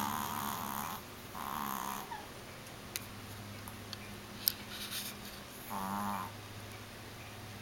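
Chihuahua snoring in sleep: three rattling snores, two close together at the start and one about six seconds in. A short sharp click sounds about four and a half seconds in.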